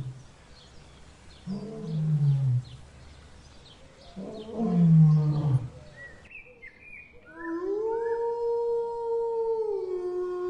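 A lion growls three times, each a low call about a second long that falls in pitch, the last the loudest. About seven seconds in, a wolf starts one long held howl that drops slightly in pitch near the end.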